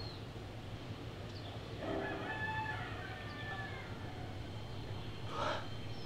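A rooster crowing once, about two seconds in, a single drawn-out call lasting about a second and a half.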